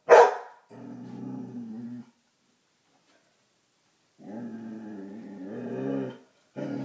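A coonhound gives one loud bark, then growls low and long three times. The first two growls last a second or two each, the second grows louder toward its end, and the third starts near the end.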